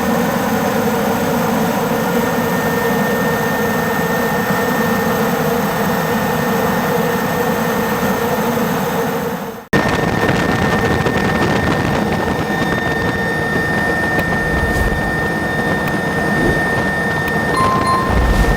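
Super Puma twin-turboshaft helicopter in flight: loud, steady turbine and rotor noise with a constant whine. The sound cuts abruptly about ten seconds in and carries on with a slightly different tone.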